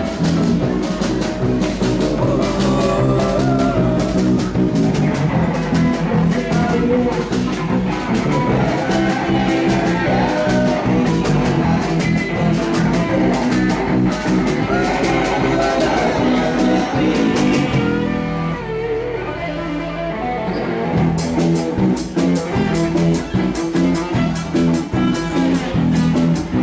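Live band playing a blues-rock song with electric guitar and drum kit; the drums drop out for a few seconds about two-thirds of the way through, then come back in.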